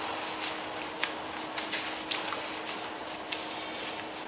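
A paintbrush spreading aircraft paint stripper over a painted car hood: a run of irregular wet swishing brush strokes, a few to each second.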